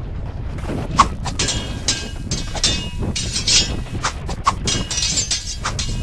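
Sound effect of an irregular run of sharp clicks and clattering knocks, some with a brief high ring, a dozen or so over several seconds.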